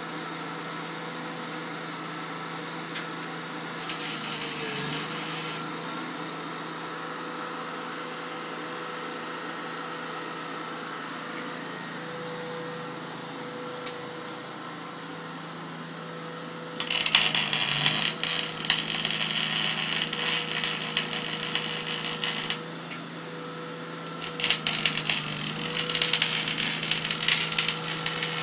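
MIG welder arc crackling in bursts: a short run about four seconds in, then two long runs of several seconds from just past the middle to the end, over a steady hum. The steady crackle is taken as welding nicely.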